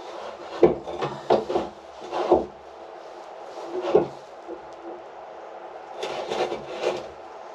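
Scattered wooden knocks and clunks, then a stretch of scraping and rubbing about six seconds in: handling noise as a level is set down and shifted about on the boat's surfaces.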